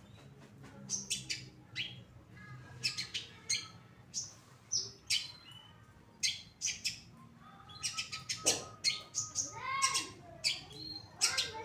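Long-tailed shrike (cendet) singing: a string of sharp, high chirps in short spurts, growing busier with some lower, curving notes after about eight seconds.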